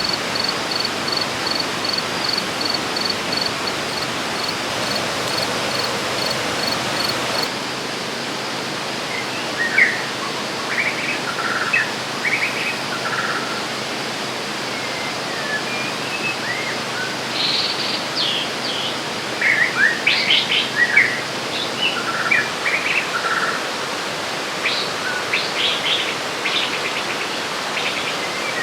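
Steady rush of a river's flowing water. For the first few seconds a high, regular pulsing insect call runs over it, and from about a third of the way in birds chirp in short, scattered calls.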